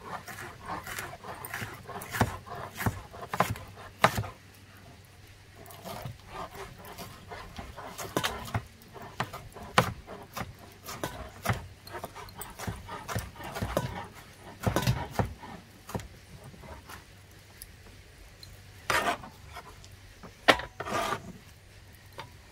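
Knife cutting up vegetables by hand, a series of irregular knocks and short scraping cuts.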